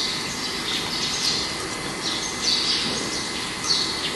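A bird chirping repeatedly, short high chirps every half second to a second, over steady background noise.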